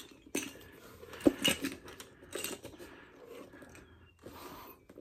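Handling noises of an inflator hose being fitted to a paddle board's valve: a few light clicks and knocks, the sharpest about a second in, with faint rustling.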